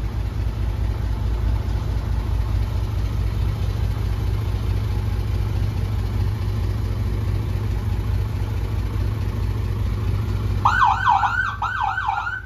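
Fire truck idling with a steady low engine rumble; near the end its siren comes on in a rapid yelp, a loud wail sweeping up and down about four times a second for a second and a half.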